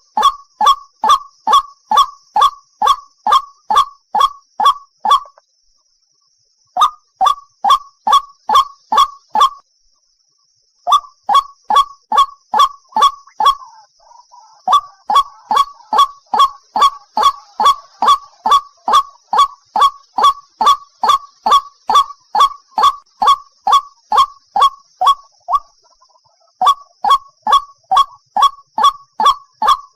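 A single white-breasted waterhen calling: a long series of loud, harsh notes at about three a second, broken by short pauses of about a second three times.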